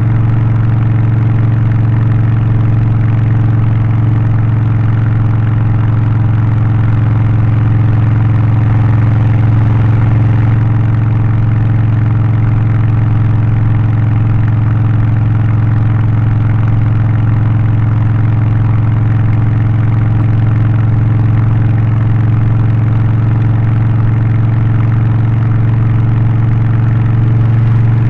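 Harley-Davidson Low Rider ST's Milwaukee-Eight 117 V-twin, Stage 1 tuned with a remap, aftermarket exhaust and air filter, running at a steady, unchanging speed with a deep, even drone.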